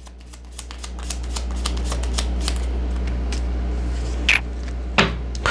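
A deck of tarot cards being shuffled by hand: a fast, dense patter of card clicks over a steady low rumble.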